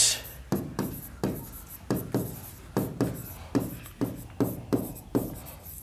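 Handwriting on a board: a string of short, scratchy pen strokes and taps, roughly three a second, irregularly spaced.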